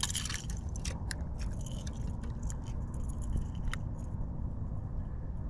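Steady low wind rumble on the microphone, with scattered light clicks and ticks from handling a spinning rod and reel during a cast.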